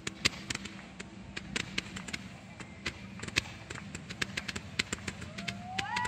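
Ground-fired fireworks, without aerial shells, going off: an irregular run of sharp pops and cracks. Near the end a whistling firework starts, its pitch rising and then holding steady.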